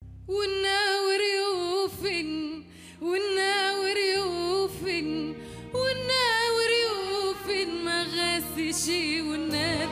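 A woman singing long, held notes with vibrato into a microphone, in phrases with short breaths between them, over a low instrumental accompaniment.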